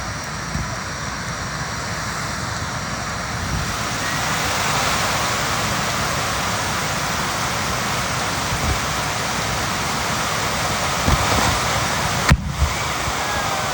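Handheld Japanese tube firework (tezutsu hanabi) spraying sparks with a steady, loud hiss that grows louder about four seconds in. A few sharp knocks come near the end.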